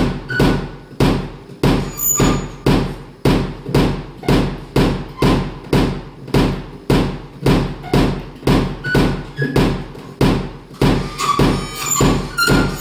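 Live electronic music: a steady pulsing beat of low, decaying thumps, about three every two seconds, with a few brief high tones sounding over it, more of them near the end.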